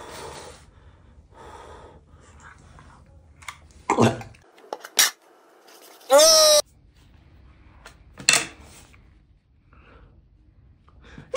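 A man's loud wailing cries, each under half a second with a falling pitch, one about six seconds in and another at the very end, with shorter gasps, breathy noises and a sharp smack between them.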